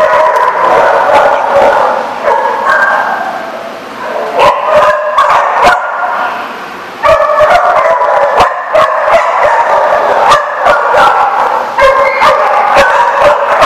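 Many dogs barking and yipping over one another while playing. The calls go almost without pause, easing off briefly about four seconds in and again just before seven seconds, then starting up loudly again.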